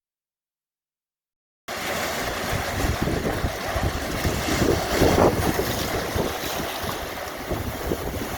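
Silence for about a second and a half, then ocean surf cuts in suddenly: a steady wash of breaking waves with gusts of wind buffeting the microphone.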